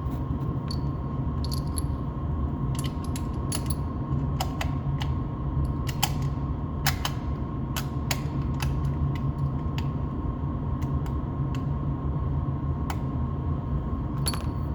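Small metallic clicks and rattles of a bolt-action rifle being handled and readied to fire, over a steady low hum.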